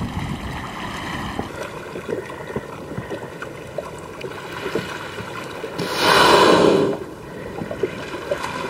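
A humpback whale blowing at the surface: one loud exhaled breath lasting about a second, around six seconds in. Water laps and splashes around the surfacing whale throughout.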